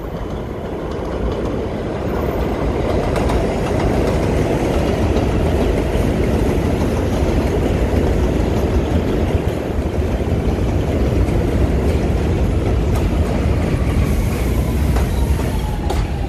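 New York City subway train pulling in on an elevated line: a steady rumble of steel wheels on the rails that grows louder over the first few seconds, with a faint falling whine near the end as it slows.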